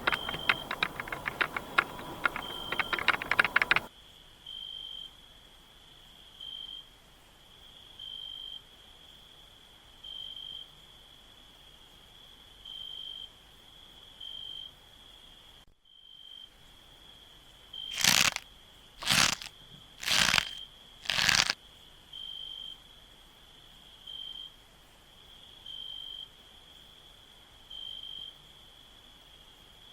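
A cricket chirping, a short high chirp repeated every one to two seconds. The first few seconds also hold a dense run of rapid clicks and crackles. About two thirds of the way through come four loud noisy strokes, about a second apart.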